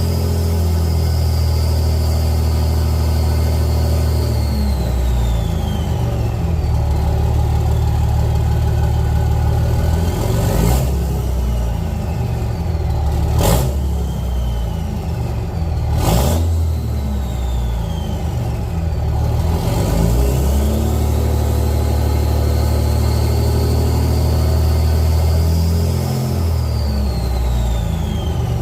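5.9 Cummins inline-six turbo diesel pulling through a 5-inch axle-dump exhaust, its turbo whistle climbing and holding, then gliding down as the throttle comes off. This happens twice, with a quieter stretch in the middle broken by three sharp clicks.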